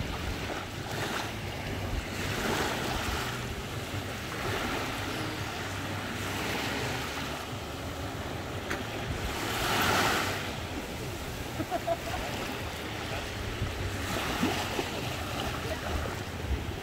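Small waves lapping onto a sandy beach, the wash swelling and falling back every few seconds, loudest about ten seconds in. A steady low rumble of wind on the microphone lies underneath.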